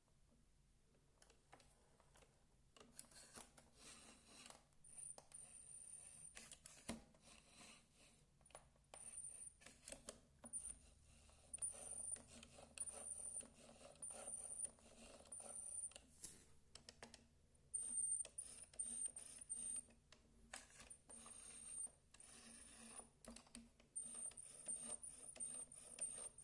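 Xiaomi Mi Robot Vacuum (first generation) wheels squeaking and creaking as it moves. A thin, very high squeak repeats in short bursts from about five seconds in, among light clicks and rattles.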